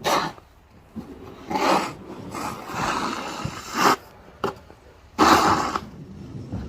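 A snow shovel scraping and pushing through snow in several separate strokes, the longest about three seconds in.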